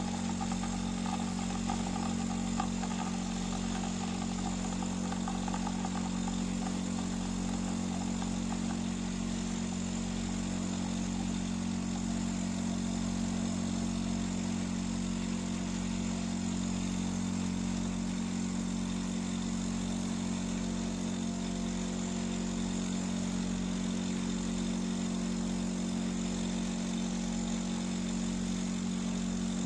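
De'Longhi Magnifica S automatic espresso machine running, a steady, unbroken pump hum with a hiss over it.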